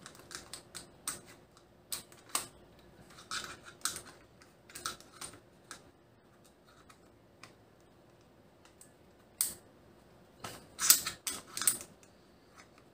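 Trigger group of a Barathrum SPA8T pump-action shotgun being worked back into its receiver, a fiddly fit. Scattered sharp clicks and taps come first, then a few seconds of near quiet, then a quick run of clicks near the end.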